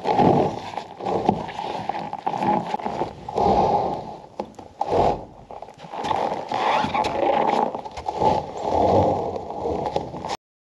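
Irregular scraping and crunching of steel rebar bars being slid through snow along foam insulated concrete forms, in uneven swells, cutting off suddenly near the end.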